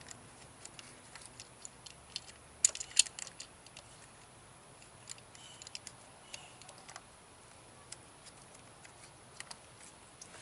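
Scattered light clicks and taps of a replacement ignition coil and its rubber grime guard being pushed into place on the engine, with two sharper clicks about three seconds in.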